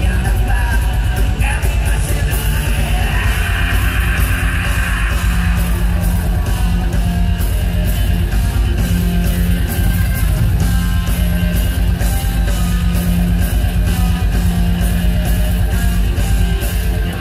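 Progressive metal band playing live, heard loud from the crowd: fast drums with dense cymbal hits, distorted electric guitar and a steady bass, with a singer's voice.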